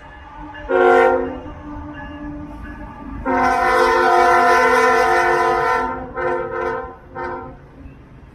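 Freight train locomotive's air horn sounding a chord: one short blast about a second in, a long blast of about three seconds, then a few short toots near the end.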